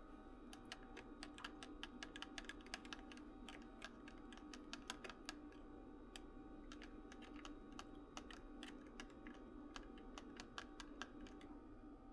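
Faint, irregular light clicking, several clicks a second, starting about half a second in and stopping near the end, over a steady hum.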